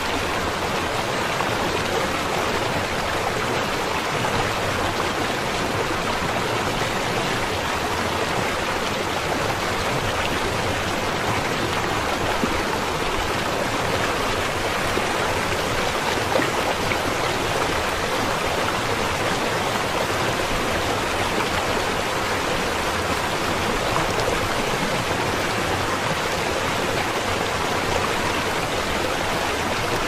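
Shallow, fast river rushing over stones: a steady, even rush of water that does not change.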